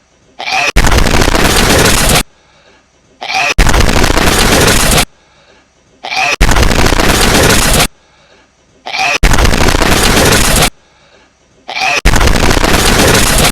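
A hedgehog's sneeze played in a loop, five times here, about every three seconds. Each repeat is a faint little sound, then a loud, distorted blast about a second and a half long.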